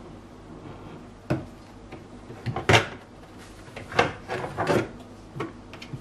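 Plastic knocks and clatters of a Beko fridge's shelves, drawer and the bottles in it being handled. There are a handful of separate bumps and rattles, the loudest a little before the middle.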